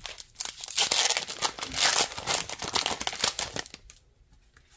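A foil Pokémon TCG booster pack wrapper being crinkled and torn open by hand: a dense crackle that dies away near the end.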